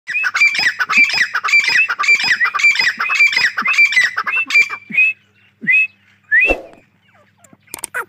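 Grey francolin calling: a fast run of shrill, repeated notes, about three or four a second. The run slows to a few single notes and stops about six and a half seconds in.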